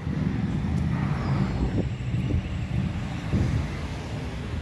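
Road traffic on a city avenue: cars driving past with a steady low rumble of engines and tyres.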